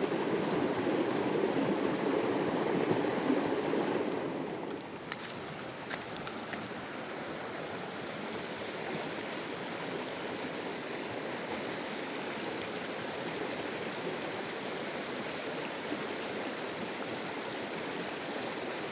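Stream water flowing and burbling over stones, louder for the first four seconds, then settling to a softer, even rush. A few faint clicks come about five to six seconds in.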